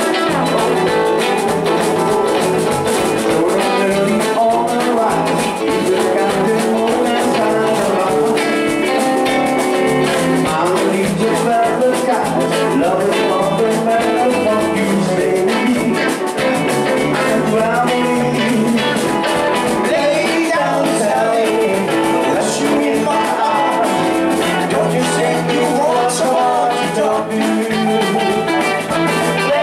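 Live rock-and-roll band playing: electric guitars, electric bass and a drum kit.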